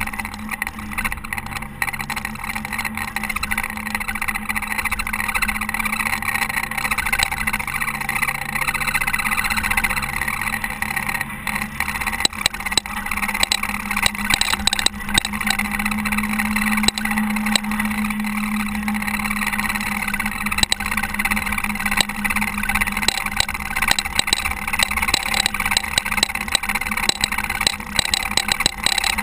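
Diesel engine of a Caterpillar TH330B telehandler running steadily while snowplowing, its low hum shifting pitch around the middle, with frequent small clicks and rattles.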